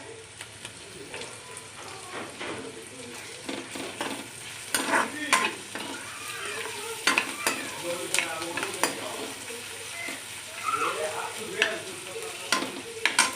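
Food sizzling as it fries in a pan, with a spatula stirring and scraping against the pan several times.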